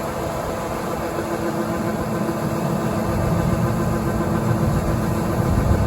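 A large farm diesel engine running at a steady speed: a continuous drone with a fixed hum in it.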